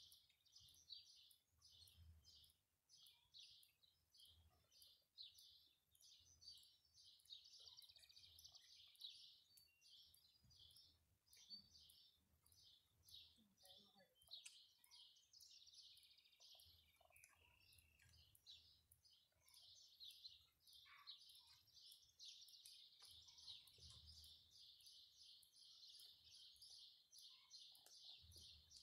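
Faint, continuous high chirping of birds, with a few soft low thuds now and then.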